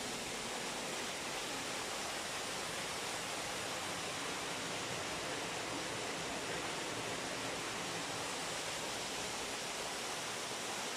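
Steady rush of water pouring through a watermill's race, a continuous even noise.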